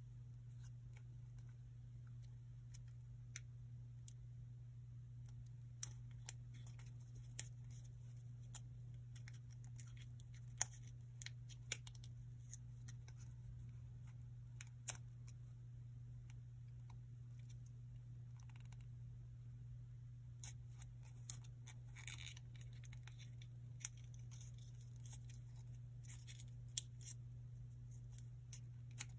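Small sheet of origami paper being opened out and creased between fingers: scattered faint crinkles and short crisp clicks of the paper, more frequent in the last third. A steady low electrical hum runs underneath.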